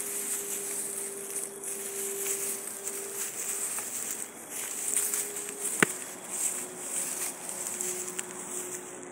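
Grass rustling and crackling as animals move through it, over a steady insect buzz, with one sharp click about six seconds in.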